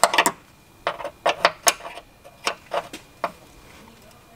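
Wrench clicking on a brake line flare nut as it is threaded in and tightened: about ten sharp, unevenly spaced metal clicks, stopping about a second before the end.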